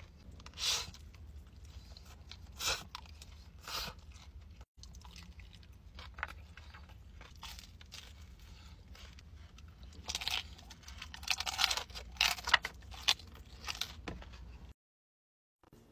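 Crunchy food being bitten and chewed: loud separate crunches at intervals, then a quick run of crunches near the end before the sound cuts off.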